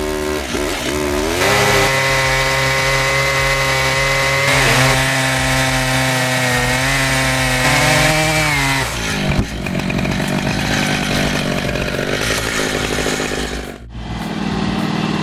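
Two-stroke chainsaw revving up and held at a high, steady pitch, then dropping in pitch about nine seconds in and running rougher. The sound cuts out briefly near the end.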